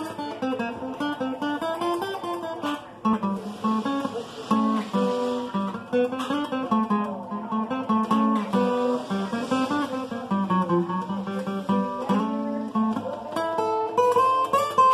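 Epiphone acoustic guitar playing a blues in A, picked by hand: single notes and chords over a bass line that steps up and down.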